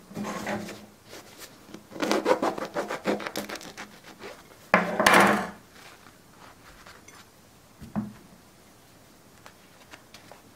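A crusty bread roll being handled and pulled open, its crust crackling and rustling in several bursts, the loudest about five seconds in. A single soft knock comes near eight seconds.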